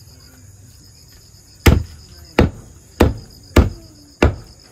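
Chicken being chopped into pieces with a cleaver on a chopping block: five sharp chops, a little under two a second, starting about a second and a half in.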